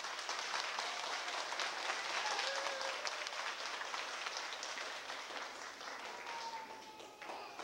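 Audience applauding: dense hand-clapping that thins out and fades toward the end.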